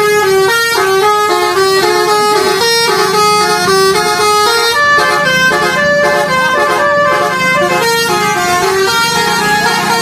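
Bus 'telolet basuri' musical air horn playing a tune: loud, clear pitched notes that step up and down in quick succession.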